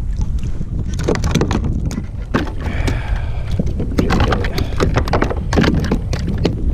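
Wind buffeting the microphone, with a run of sharp knocks and rattles on a plastic kayak as a freshly caught flathead is swung aboard and lands on the deck.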